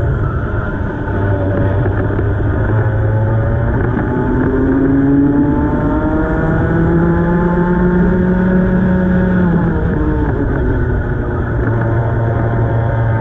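Racing kart engine heard onboard at full throttle, its pitch climbing along a straight, dropping as the driver lifts for a corner about ten seconds in, then climbing again near the end, over a steady rumble of wind and tyres.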